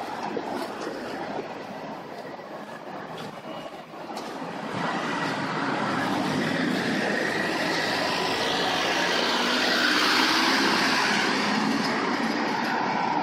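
Street traffic: a Volkswagen Transporter van drives past over a cobblestone road, its tyre and engine noise swelling about a third of the way in.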